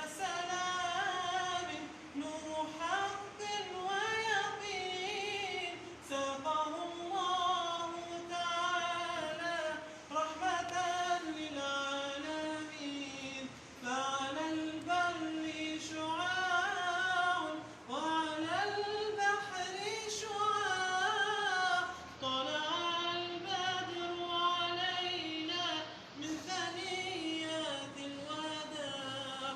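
Unaccompanied singing of an Islamic nasheed: one or more voices sing long melodic phrases with no instruments, each phrase lasting about four seconds and separated by short breaths.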